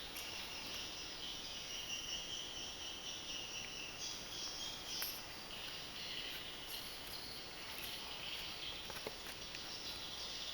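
Steady background chorus of insects, a continuous high shrill drone, with a few faint clicks.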